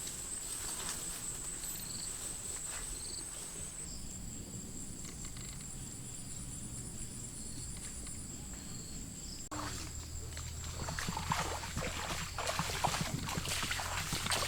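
Insects trilling steadily at a high pitch, with a second, pulsing insect call joining for a few seconds in the middle. After an abrupt change about two-thirds in, scattered clicks and light knocks sound over the insects.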